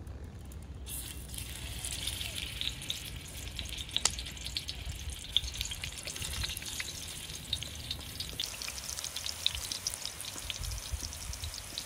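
Peeled eggplant halves sizzling as they are laid into hot oil in a wide metal pan. The sizzle starts about a second in and carries on with scattered sharp pops and crackles.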